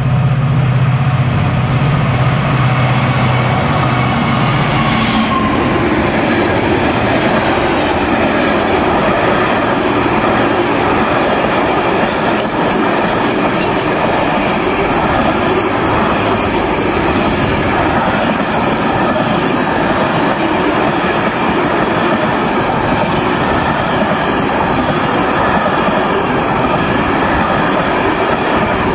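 Container freight train running past at speed. In the first few seconds the locomotive's low hum goes by with a falling tone and fades about five seconds in. After that comes a steady rumble and clickety-clack of the container wagons' wheels on the rails.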